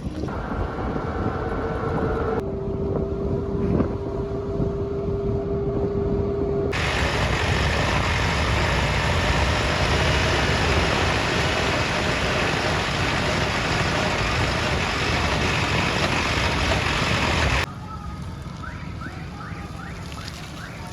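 Heavy diesel machinery running steadily, a backhoe loader and tractor at work, with a steady whine over the engine noise for the first several seconds. The sound changes abruptly three times, as if cut between shots.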